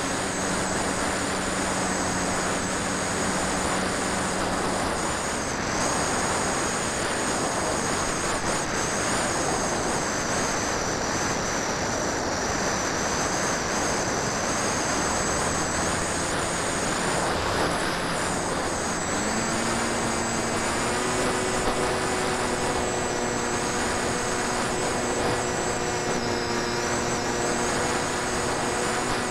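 Wind rushing past the onboard camera of a Phantom FX61 flying wing in flight, over the high whine of its electric motor and propeller, which wavers in pitch. A lower, steady propeller hum joins in about two-thirds of the way through.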